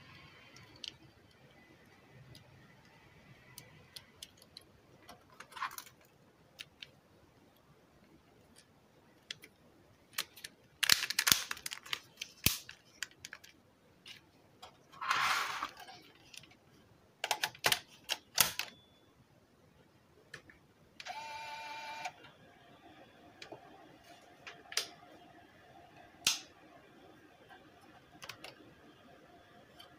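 Scattered plastic clicks, taps and a scrape as a Sony car stereo's keypad board and detachable front panel are handled and fitted back onto the unit. A short buzzy tone sounds for about a second roughly three-quarters of the way through.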